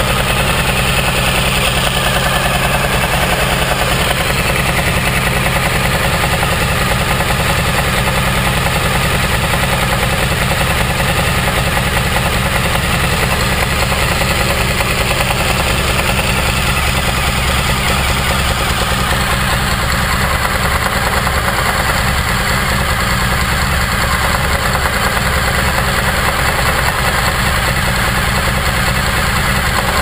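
2014 Suzuki V-Strom DL1000's V-twin engine idling steadily, heard close to the engine, with the knock the owner is recording it for.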